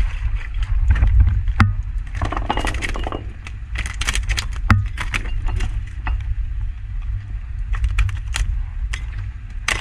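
A hooked skipjack tuna splashing at the boat's side as it is hauled out, then thrashing against the deck and line: a run of sharp knocks and clatters over a low rumble.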